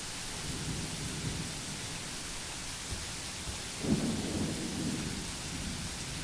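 Low rumbles over a steady hiss. A weaker rumble comes in about half a second in, and the loudest starts suddenly about four seconds in and fades away over a second or two.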